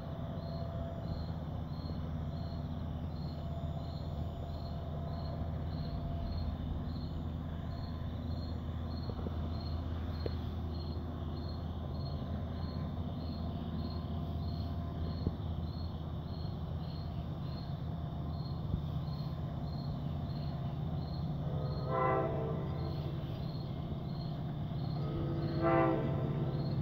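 LIRR DE30AC diesel locomotive approaching with its EMD 710 engine running as a steady low drone. Its air horn sounds two blasts, one about 22 seconds in and a slightly longer one near the end.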